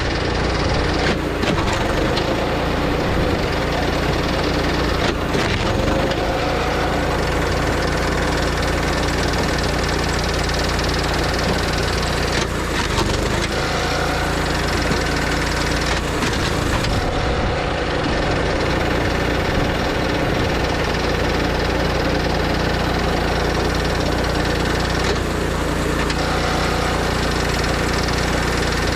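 Engine of a kinetic log splitter running steadily, with a few sharp cracks of wood as rounds are split.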